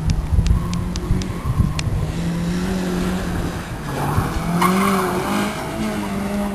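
Honda Civic Si rally car's engine revving up and down through the gears at speed. A few sharp ticks come in the first two seconds, and from about four seconds in a hiss of tyres sliding on the loose surface swells for a second or so.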